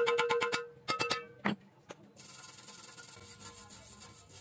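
Plucked background music stops about half a second in, followed by a few short knocks. From about two seconds in, a steel wire brush scrubs steadily across a fresh stick weld on square steel tube, cleaning the weld, with a dry, hissing scratch.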